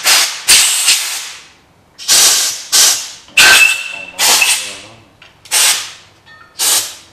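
Compressed-air blow gun on a shop air hose fired in short, loud blasts of hissing air, about eight in a row, some clipped and some held for most of a second.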